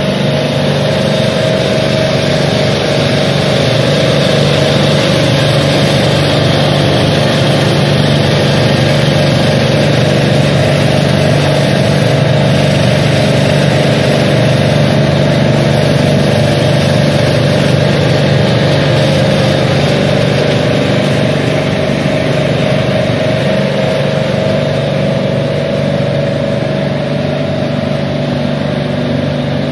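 Transport-refrigeration unit's Bitzer compressor running steadily on test, an even machine hum with a steady low drone and a higher tone above it.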